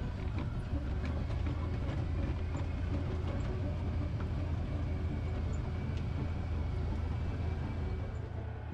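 Side-by-side ATV engine running steadily with a low hum as it drives along a dirt track, with scattered knocks and rattles from the cab over the bumps.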